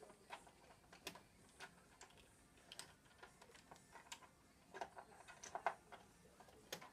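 Faint, irregular clicks and scrapes of a screwdriver turning a screw into a burglar alarm bell box cover, with a quick cluster of louder clicks about five seconds in.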